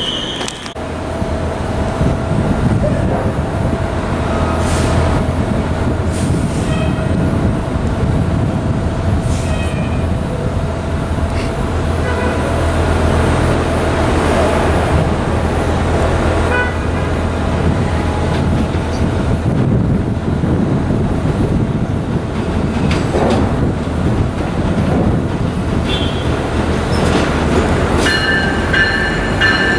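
Long Island Rail Road train running slowly in toward the station platform: a steady low rumble, with a drawn-out whine through the first half and several high steady tones that come in near the end.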